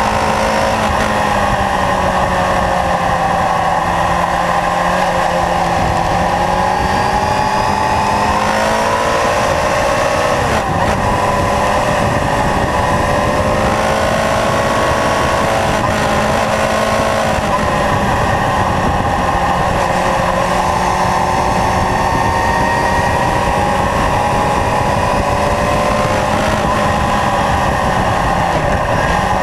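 Kawasaki Zephyr's air-cooled inline-four engine running under way. The engine note rises and falls as the bike rides through bends, with a sudden drop in pitch about ten seconds in.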